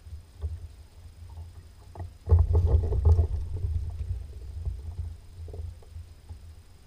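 Knocking and low rumbling from a fishing kayak's hull and seat as the angler shifts his weight, carried to a camera mounted on the kayak. The loudest stretch begins a little over two seconds in and eases off.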